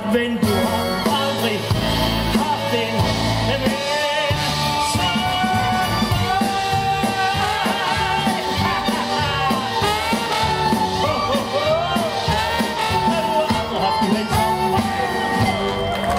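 A live band plays the ending of a swing show tune, with trombone and drums, while a man sings long held notes with vibrato over it. The music stops near the end.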